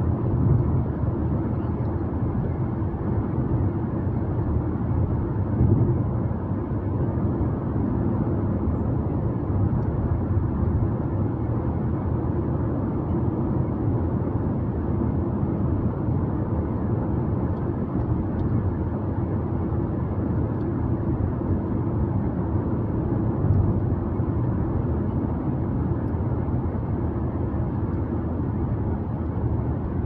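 Car driving along a road: a steady low rumble of engine and tyre noise that keeps an even level throughout.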